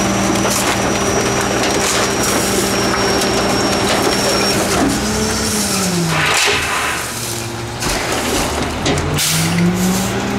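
Rear-loader garbage truck compacting bulk trash: the diesel engine is held at raised revs to drive the hydraulic packer, with a high hydraulic whine, over cracking and crunching of the load. The revs fall away about halfway through and climb again near the end as the packer cycle continues.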